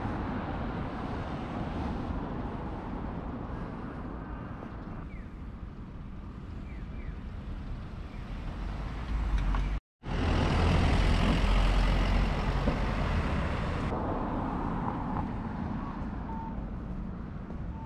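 City street traffic: a steady rumble of passing vehicles. The sound cuts out abruptly for a moment about ten seconds in, then comes back louder with a heavy low rumble for a few seconds. A few faint short beeps come near the end.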